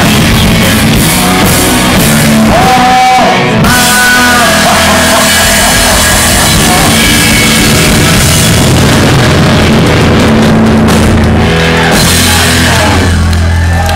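Punk rock band playing live and loud: distorted electric guitars, bass and drum kit, with held guitar notes ringing over the beat.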